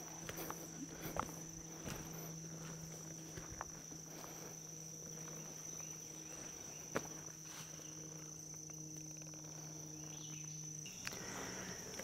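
A steady, high-pitched insect chorus, with scattered footsteps and a faint low hum that cuts off near the end.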